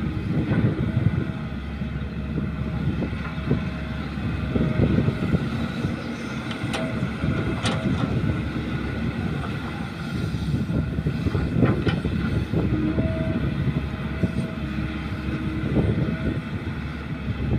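Caterpillar hydraulic excavator's diesel engine running under load as it digs, swings and dumps, with soil pouring from the bucket into a steel dump-truck bed. A few sharp clanks come around the middle.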